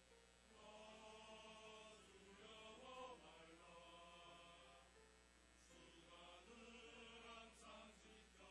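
Mixed church choir singing a hymn in Korean in sustained, harmonized notes, recorded quietly, with a short breath between phrases about five seconds in.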